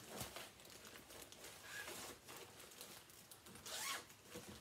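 Faint rustling of paper and card being handled and put down, with a louder swish near the end.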